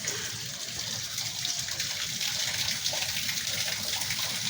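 Water gushing steadily down an outdoor drain that has just been cleared of weeds, the flow running freely again.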